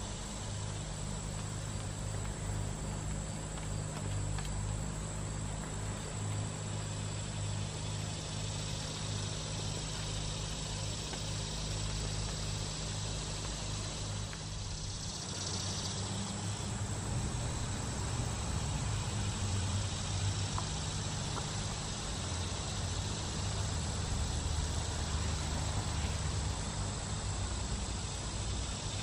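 Outdoor background: a steady low rumble, a little louder in the second half, with a continuous thin high-pitched insect drone over it.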